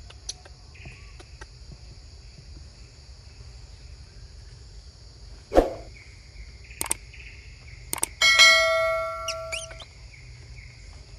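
Something metal is struck with a loud clang about two-thirds of the way in, then rings with several clear tones that fade over about a second and a half. A dull thud comes a few seconds earlier, and a steady high insect drone runs under everything.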